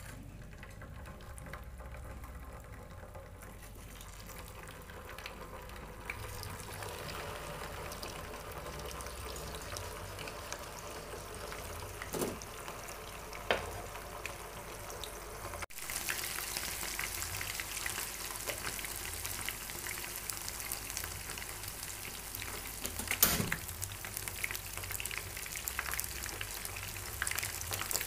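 Sauce-coated chicken wings shallow-frying in oil in a nonstick pan: a steady sizzle with crackling that grows louder partway through. A few sharp clicks stand out above it.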